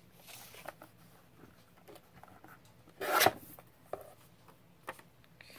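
Paper being handled on a desk: soft rustling and sliding, a louder short rustle about three seconds in, and a few light taps.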